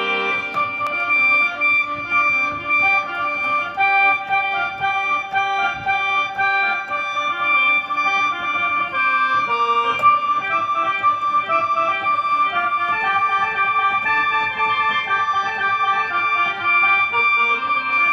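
Korg X5D synthesizer playing its khaen (Isan/Lao free-reed mouth organ) patch: a steady held drone note under a moving melody.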